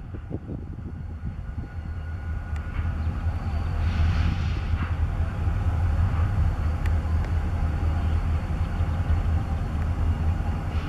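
Diesel freight locomotive running as it approaches under power: a steady low engine rumble that grows louder about two seconds in and then holds.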